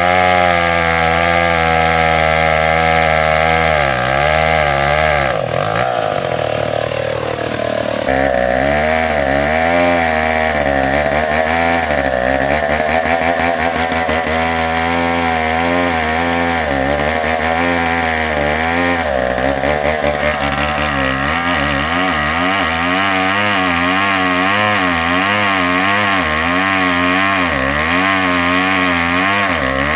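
Tecogold 700 two-stroke chainsaw running under load while cutting into a bengkirai hardwood trunk, its engine pitch wavering up and down as the chain bites. About six seconds in, the pitch briefly slides and shifts before the steady cutting resumes.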